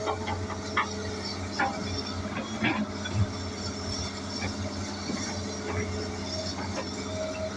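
Hitachi excavator's diesel engine running steadily under work, with a few knocks and clanks in the first three seconds.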